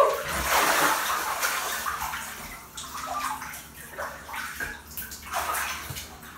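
Bathtub water sloshing and splashing as a person stands up and climbs out of the tub. It is loudest in the first second or so, then comes in smaller, irregular splashes.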